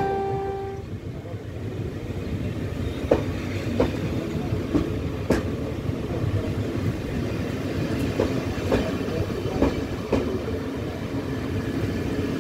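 Taiwan Railways Chu-Kuang express coaches rolling past as the train pulls out: a steady low rumble with wheels clacking now and then over rail joints. A short steady horn-like tone ends just after the start.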